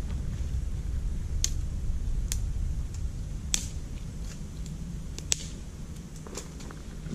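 Dry wood snapping and cracking as a fallen branch is worked by hand: a handful of sharp, irregular cracks over a low steady rumble.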